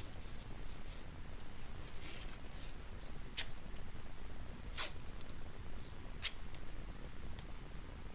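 White athletic tape being torn into strips by hand: three short, sharp rips about a second and a half apart, with softer tape crinkling before them, over a faint steady hiss.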